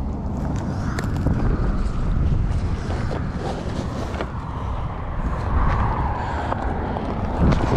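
Wind buffeting the microphone: a steady low rumble, with a few light clicks.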